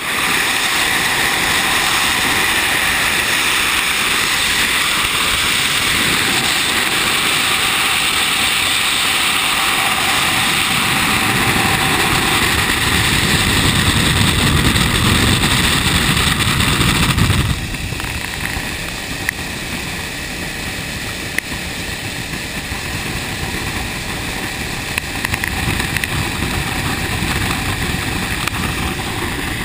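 Motorcycle cruising at highway speed: a steady rush of wind on the microphone with engine and road noise beneath it. The noise drops suddenly to a lower level a little over halfway through.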